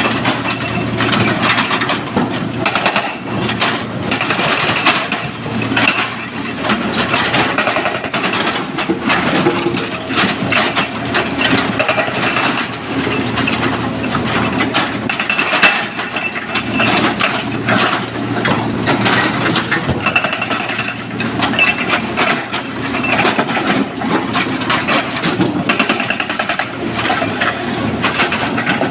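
SANY SY225 excavator's diesel engine running steadily under a continuous, irregular clatter and scrape of broken stone against the steel bucket and truck bed as it loads rock.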